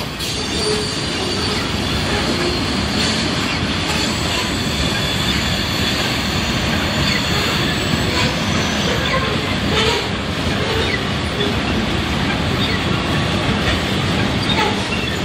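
Freight train of covered hopper cars rolling past at close range: a steady rumble and clatter of steel wheels on rail, with a faint high wheel squeal and an occasional sharp click.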